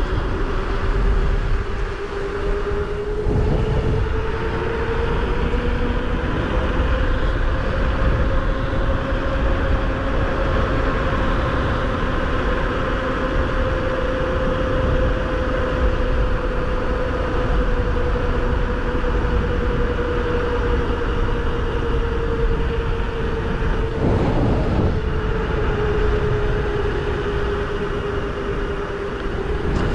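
A steady mechanical whine whose pitch drifts slowly up and then back down, over a constant rushing noise, with two short rumbles about three seconds and twenty-four seconds in.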